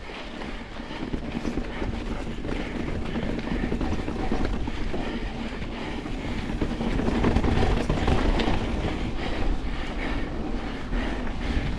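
2025 Pivot Switchblade mountain bike rattling and rumbling over rocky trail: tyres on rock and a quick clatter of small knocks from the bike, getting louder about halfway through.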